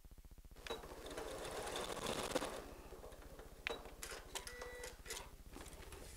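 Electric sewing machine stitching a seam through folded cotton fabric, running for about two seconds, then stopping with a few sharp clicks.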